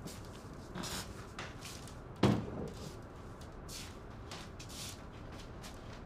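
A door thuds once, sharply, a little over two seconds in, with soft footsteps and rustling around it.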